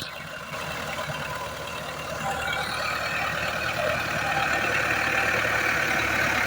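A tractor engine running steadily, getting gradually louder over the last few seconds as it brings the wheat thresher into position.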